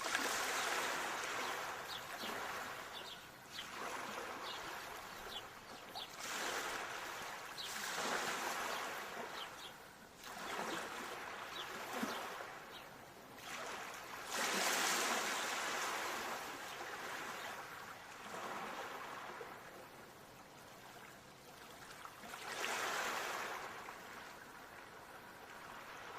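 Ocean waves breaking and washing up the shore, each surge swelling and fading every few seconds, with the loudest ones near the start, about halfway through and near the end.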